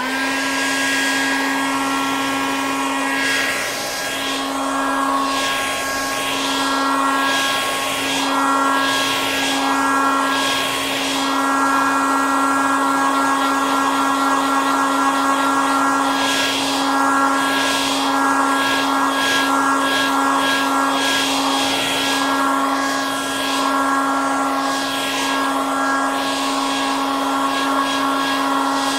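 Hair dryer running steadily: a motor whine with a strong steady hum under a wide rush of blowing air, the rush swelling and easing every few seconds.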